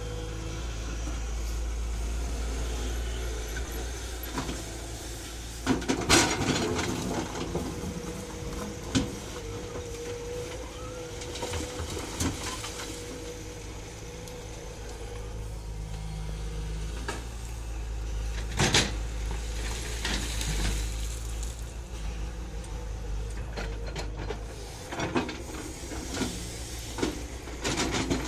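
Tata Hitachi EX200LC hydraulic excavator's diesel engine running steadily under load, with rocks knocking and clattering as the bucket digs and dumps. The loudest knocks come about six seconds in, around nineteen seconds, and in a cluster near the end.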